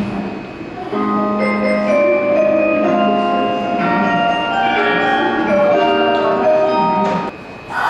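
Station departure melody playing on the platform: a chime-like tune of held, bell-like notes, several sounding at once, lasting about six seconds and cutting off suddenly near the end.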